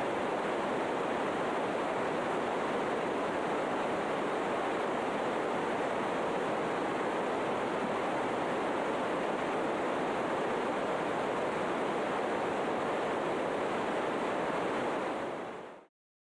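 Steady rushing noise with no distinct events, fading out near the end into silence.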